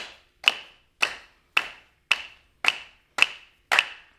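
A steady percussive beat of sharp strikes, about two a second, each with a short ring, keeping time for a traditional Noongar dance song between sung verses.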